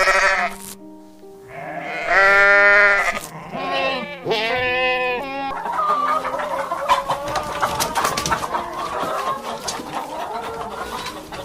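A series of farm-animal calls over steady background music: a short cry at the start, two long pitched calls that bend in pitch in the first half, then a busy, chattering stretch of calls.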